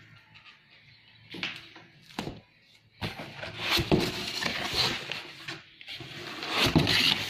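Cardboard carton flaps being handled and pulled open: two short knocks, then from about three seconds in a continuous loud scraping rustle of cardboard rubbing on cardboard and foam packing.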